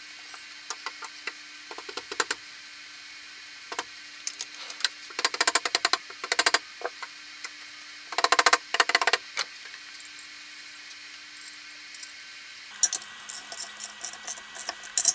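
A hand ratchet clicking in two quick runs as the pressure-plate bolts are run down onto a flywheel, with scattered light metal clinks between them. More ratcheting clicks near the end as the bolts are worked with a torque wrench.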